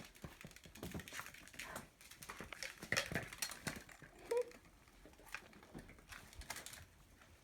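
Kittens playing on the floor: scattered light taps, clicks and patters of paws and small plastic toy balls, with one brief squeak about four seconds in.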